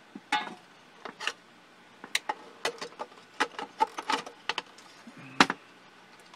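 Irregular clicks, taps and light knocks of a small metal power supply module and wire leads being handled and fitted back into an open laser projector's metal case, with one louder knock about five seconds in.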